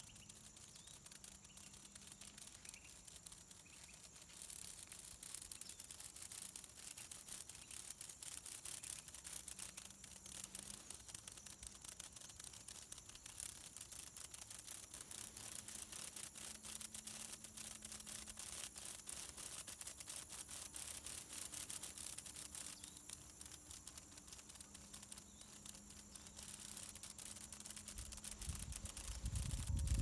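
Faint, high-pitched insect chorus: a dense, rapidly pulsing hiss that swells and fades several times, with a low rumble coming in near the end.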